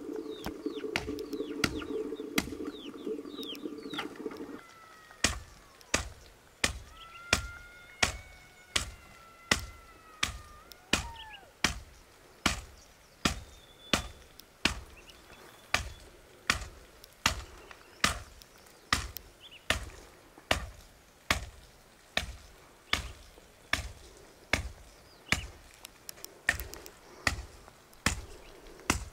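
Steady chopping strokes with a blade on wood, about three blows every two seconds, each a sharp knock. A steady hum under them stops about four and a half seconds in, and birds chirp a few times soon after.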